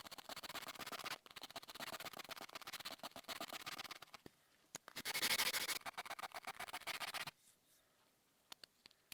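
A hand tool cutting or shaving wood in long scratchy strokes, a louder stroke about five seconds in, then near quiet with a few light clicks near the end.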